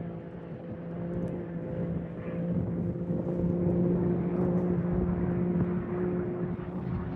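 A vehicle engine droning at a steady pitch over rumbling noise, growing louder toward the middle and easing off slightly near the end.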